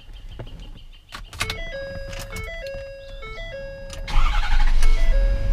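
A short electronic tune of stepped notes plays. About four seconds in, the 2015 Ford F550's 6.7L Power Stroke V8 turbodiesel cranks and starts, then runs loudly.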